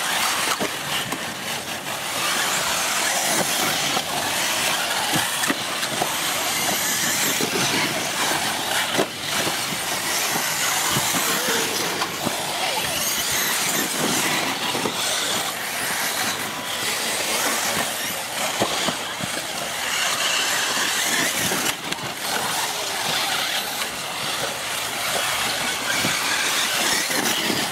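Radio-controlled model buggies racing around the track, their motors and tyres making a steady mixed noise, with a few short sharp knocks.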